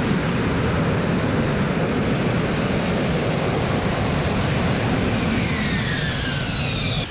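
AV-8B Harrier II's Pegasus vectored-thrust turbofan running loud and steady through a vertical landing. In the last two seconds, a falling whine joins it as the engine spools down at touchdown.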